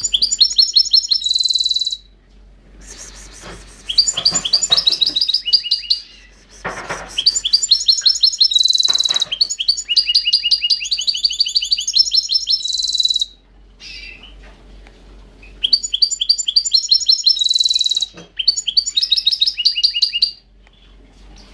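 Pet finch singing in phrases of fast trills and rapidly repeated high notes, broken by short pauses.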